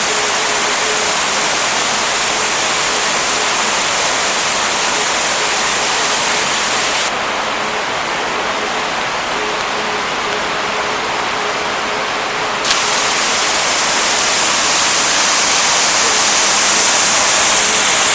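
Waterfall's steady rushing water, a dense hiss that dulls for about five seconds in the middle and then comes back bright.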